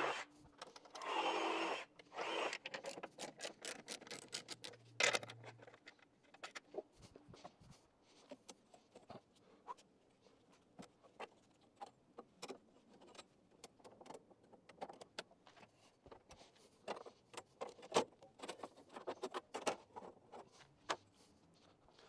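Scattered metal clicks, clinks and knocks from working on a Wood-Mizer LX55 bandsaw mill with its blade covers open: tools and hardware being handled as the band blade is slackened to be changed, with a brief noisy rush in the first couple of seconds and a heavier knock about five seconds in. The blade is being swapped because it has dulled and was cutting waves.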